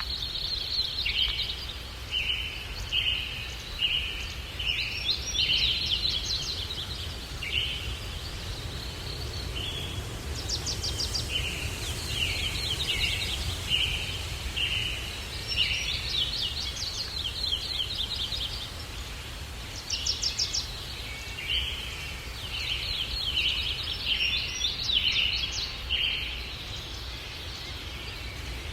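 Small birds chirping and twittering in bouts of quick, high notes, pausing briefly between bouts, over a steady low rumble of breeze.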